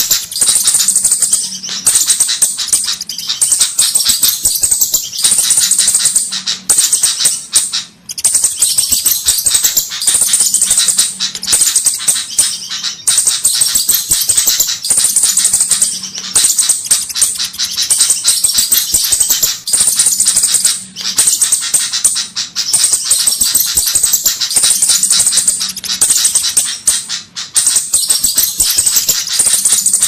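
Bird-lure recording of flowerpecker calls: high, sharp, rapid ticking notes in dense bursts of one to two seconds with short breaks, repeated over and over.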